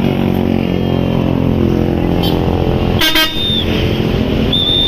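Large bus engine running steadily at a constant pitch. Two short high-pitched toots, one about three seconds in after a brief crackle and one near the end.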